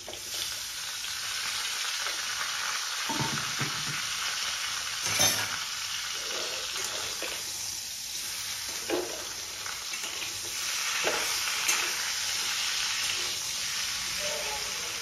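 Raw pork pieces sizzling in hot pork fat in a metal wok, with a steady frying hiss. A metal spatula stirs them, scraping and knocking against the pan a few times, most sharply about five seconds in.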